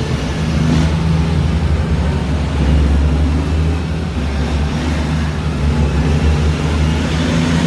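Heavy diesel truck engine running with a steady low drone, over road and traffic noise.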